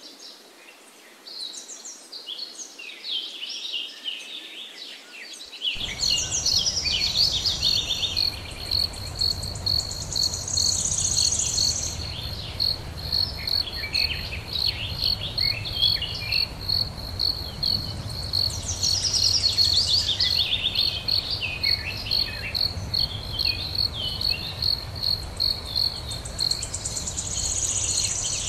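Outdoor natural ambience: birds chirping and trilling on and off. About six seconds in, an insect's steady high pulsing chirp joins them, about three pulses a second, over a low background rumble.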